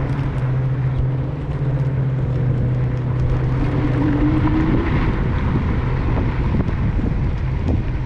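Wind rushing over the microphone while riding, under a steady low hum that fades out about halfway through.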